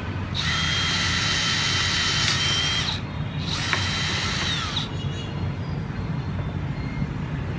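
DeWalt DCD777 18V brushless cordless drill boring into a wooden board with a 7 mm wood bit: two runs of high motor whine, about two and a half seconds then about a second and a half, each winding down as the trigger is released.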